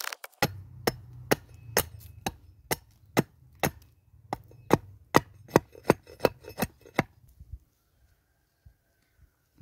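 An axe chopping into a wooden handle blank, hewing off chips in about fifteen sharp strokes, roughly two a second. The strokes come faster toward the end and stop about seven seconds in.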